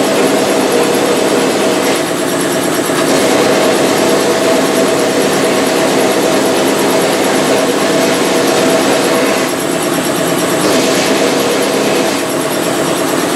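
Vapor blasting cabinet at work: a loud, steady hiss of slurry jetting from the blast gun onto brake caliper brackets and bolts, over a steady machine hum. The hiss thins briefly about two seconds in, again around nine and a half seconds, and near the end.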